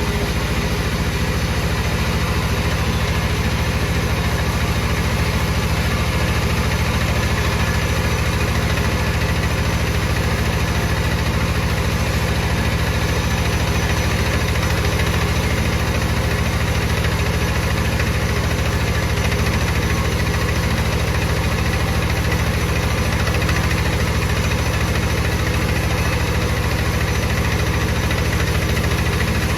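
A wood-cutting saw machine running steadily with a low hum, with no change in pitch or load.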